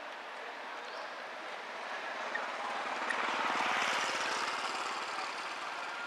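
A passing engine, its running swelling to loudest about four seconds in and then fading away.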